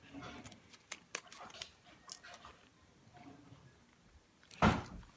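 Quiet eating and handling sounds: small clicks and mouth noises while a breakfast burrito is eaten, with one loud, brief noise about four and a half seconds in.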